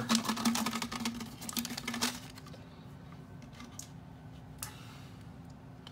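Plastic packaging crinkling and clicking as small plastic surprise packets are pulled out of a Barbie Color Reveal tube and dropped on the counter. The crinkling lasts about two seconds, then a few faint clicks over quiet room sound.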